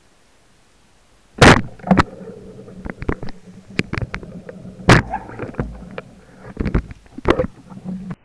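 Underwater clicks and knocks, a run of sharp strikes with the loudest about a second and a half in and again near five seconds, over a low steady hum that sets in about two seconds in.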